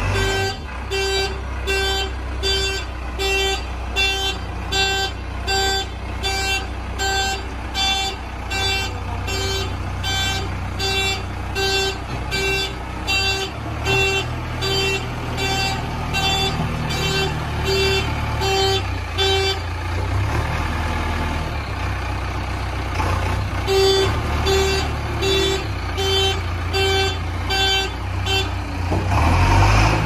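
JCB 3DX backhoe loader's diesel engine running under its reversing alarm, a steady beep about twice a second. The beeping stops for a few seconds around two-thirds of the way through, resumes, then stops again just before the engine grows louder at the end.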